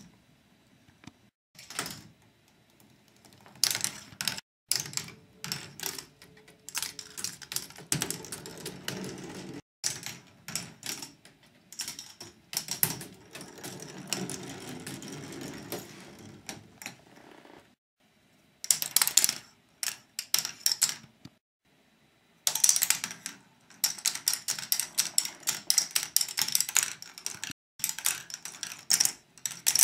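K'nex ball machine running: plastic balls clattering along its plastic tracks and mechanisms in runs of rapid clicks and rattles, with short pauses between runs. In the middle there is a longer stretch of steadier rolling rattle.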